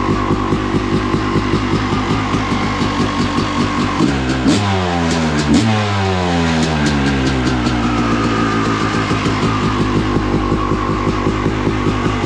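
Single-cylinder two-stroke engine of a 2000 Yamaha YZ250 dirt bike running while ridden, revving up sharply twice about four to six seconds in, with music playing over it.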